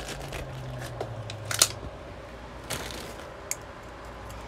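Toys and packaging being handled close to the microphone: light rustling with a few sharp clicks, the loudest about a second and a half in.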